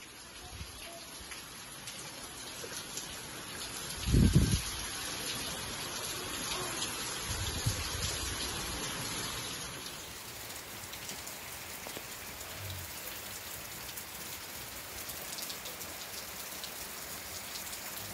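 Heavy rain falling steadily, a continuous hiss of rain on the ground. A brief low rumble about four seconds in is the loudest sound, with a weaker one near eight seconds.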